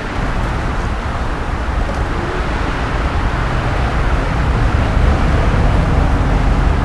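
Wind buffeting the microphone, with the low rumble of a distant thunderclap building in the second half.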